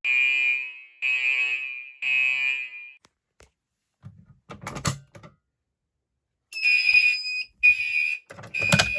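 Fire alarm sounder beeping in the three-beep temporal evacuation pattern: three pitched beeps about a second apart, a pause of a few seconds with a few scattered knocks, then the next group of three beeps begins.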